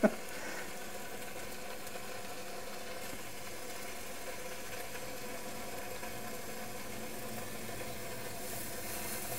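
Bacon strips sizzling quietly in a warm frying pan, over a steady mechanical hum.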